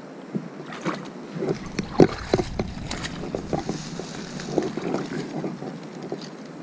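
Irregular rustles, knocks and splashy steps of someone pushing through bankside grass and ferns at the edge of a small stream, over a steady low rushing noise. The sharpest knock comes about two seconds in.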